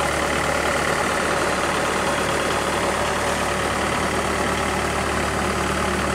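Bobcat T180 skid steer's diesel engine idling steadily, running smooth.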